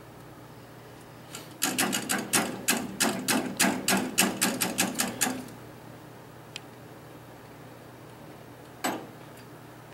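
Coilover load-testing machine clicking in a quick, even run of about sixteen sharp mechanical clicks, roughly four a second, while the coilover is brought back to its starting load, then one more single click near the end.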